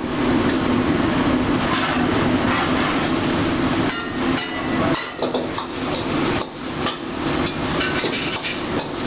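Commercial gas wok burner running with a steady roar while a metal ladle scrapes and knocks against the wok during stir-frying; from about four seconds in, the knocks come more often and the roar is less even.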